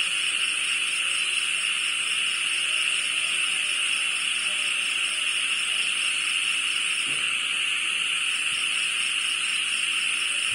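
Steady, dense chorus of night insects calling from the shrubbery, an unbroken high-pitched chirring that does not let up.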